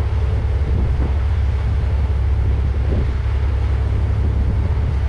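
Motorboat under way: steady wind buffeting on the microphone over the low rumble of the boat moving through the water.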